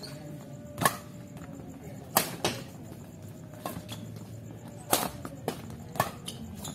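Badminton rackets striking the shuttlecock during a doubles rally: about half a dozen sharp smacks at irregular intervals, the loudest about a second in.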